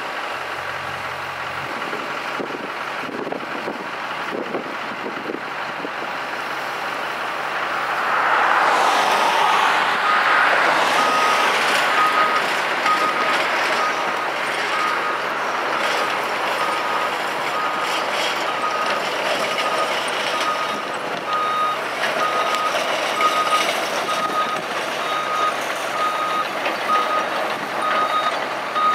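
Caterpillar 329E excavator's diesel engine running under load, growing louder about eight seconds in as it works. From about ten seconds on, its travel alarm beeps steadily over the engine while the machine tracks.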